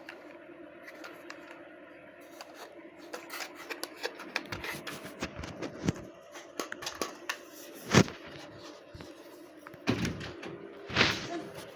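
Plastic parts of a robot vacuum-mop being handled and fitted: small scattered clicks and knocks, one loud knock about eight seconds in and a short scraping rustle near the end.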